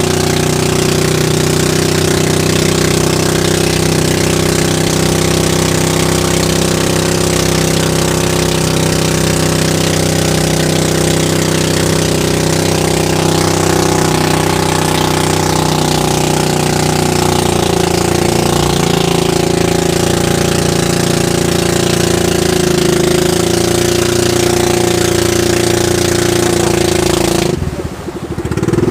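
Small fishing boat's engine running steadily at a constant speed. Near the end the sound briefly drops away and returns slightly changed.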